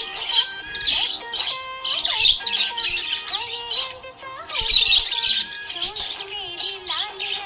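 Budgerigars chirping and chattering in rapid, high-pitched bursts, with a short lull about four seconds in, over background music.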